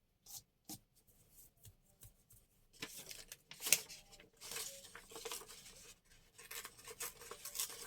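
Paper being handled during collaging: a few light taps at first, then rustling and crackling of sheets, with one sharper crackle or snip about halfway through.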